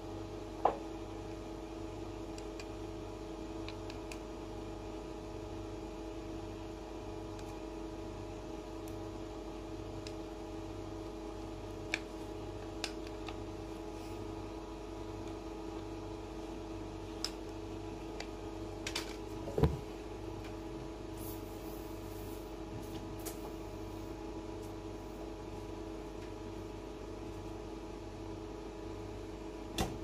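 Steady hum with a few scattered sharp clicks and knocks from handling a tubeless tyre plug tool and the scooter tyre; the loudest knock comes about two-thirds of the way through.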